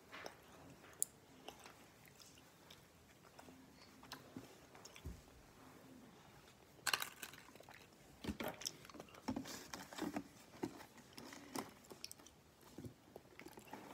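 Faint, irregular clicks and crackles close at hand, sparse at first and thicker in the second half.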